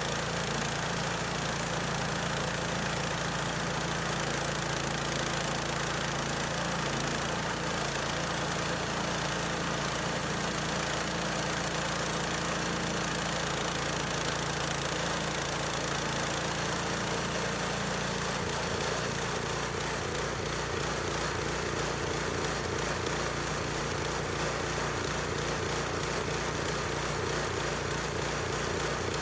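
Small engine of a portable sawmill running steadily. About two-thirds of the way through, its note changes and the low end takes on an even pulsing.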